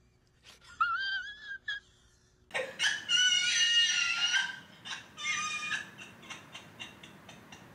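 A high-pitched, wavering whimpering cry, faint at first and then loud and drawn out from about two and a half seconds in, ending about three seconds later; faint clicks follow.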